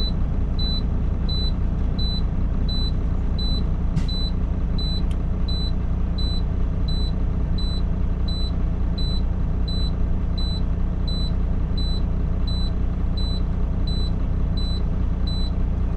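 Semi truck's in-cab warning alarm beeping steadily, one short high beep about every 0.7 s, the alert that the power divider (inter-axle differential lock) is engaged. Under it the truck's diesel engine idles steadily.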